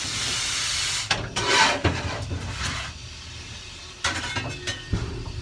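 Steam locomotive cab as the regulator is eased open to start the train: a steady hiss of steam cuts off about a second in, followed by scattered clanks and knocks over a low rumble.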